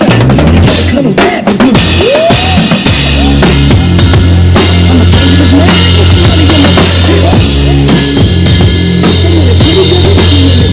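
Background music: a band track with a steady drum-kit beat over heavy bass.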